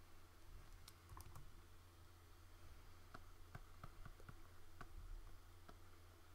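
Faint, irregular clicks of someone working a computer while painting in Photoshop, about a dozen scattered through the stretch, over a steady low electrical hum.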